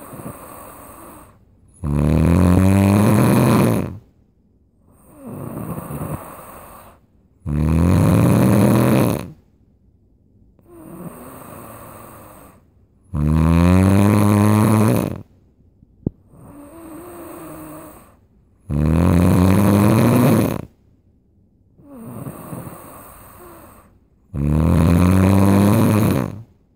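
Loud, steady-rhythm snoring: five deep, rattling snores of about two seconds each, one every five to six seconds, with a quieter breath between each.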